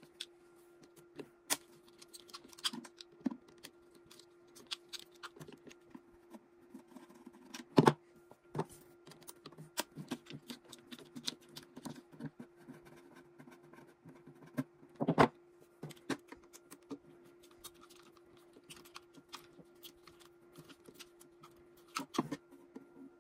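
Small machine screws being backed out of a plastic casing with a hex driver and set down: scattered light clicks and ticks, with a few sharper knocks about 8, 15 and 22 seconds in. A faint steady hum runs underneath.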